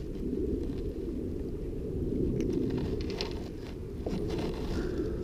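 Steady low wind rumble on the microphone, with a few short clicks and scrapes of handling as a small fish is brought in on a spinning rod.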